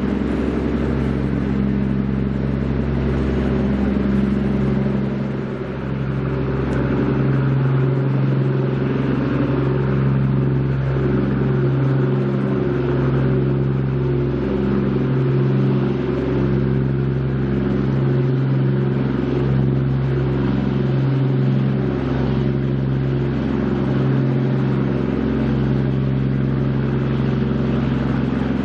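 Engines of the Japan Coast Guard survey boat HS26 Hayashio running at cruising speed: a steady, loud low drone that throbs slowly every few seconds.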